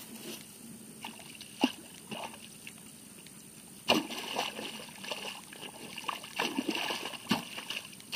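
Wet mud and shallow water squelching and splashing as a hoe is dug into a flooded rice paddy. The strokes come irregularly from about four seconds in; before that there is only a sharp knock or two.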